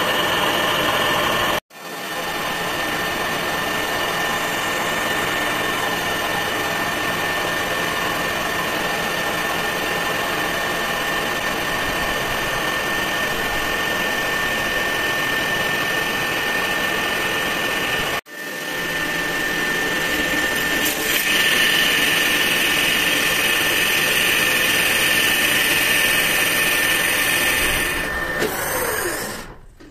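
Metal lathe running steadily with a constant high whine. The sound breaks off sharply twice and comes back, then winds down near the end as the machine stops.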